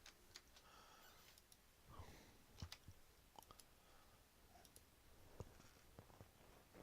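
Faint, scattered computer mouse clicks, a few seconds apart, over near-silent room tone.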